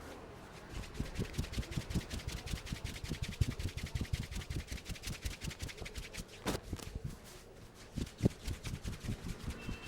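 Hands working quickly over a person's head and hair during a massage: soft patting thuds several times a second over a fine crackle of hair being rubbed. A sharp click comes about six and a half seconds in and a single louder knock about eight seconds in, before the quick strokes start again.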